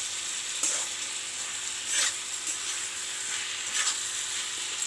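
Onions and tomatoes sizzling in hot oil in a kadai, stirred with a metal spatula that scrapes the pan a few times. The onion-tomato masala is being fried until soft.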